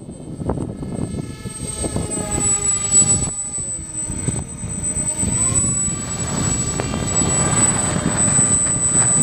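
Twin propeller motors of a radio-controlled Eurofighter model running in flight, with a steady whine whose pitch drops about three and a half seconds in and climbs back up about two seconds later. A rough rumble of wind on the microphone runs underneath.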